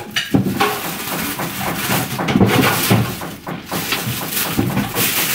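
Plastic shopping bags rustling and crinkling as groceries are unpacked, with scattered knocks and clatters of items being handled and set down.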